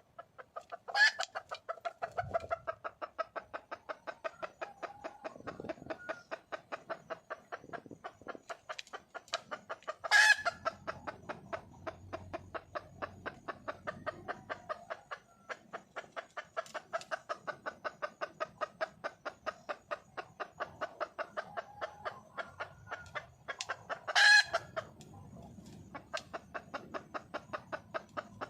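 Red junglefowl hen calling for a mate: a steady run of short clucks, about three to four a second, broken three times by a much louder, sharp squawk.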